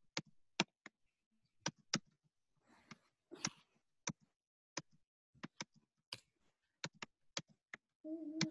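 Typing on a computer keyboard: sparse, irregular keystroke clicks. Near the end a cat starts to meow.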